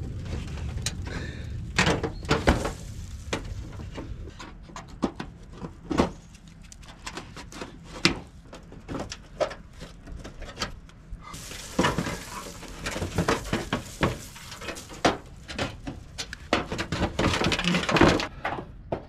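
Damaged zinc valley flashing being pried and pulled out of a tile roof by hand: irregular metallic clanks, crinkles and knocks, with a denser run of scraping and rattling in the second half.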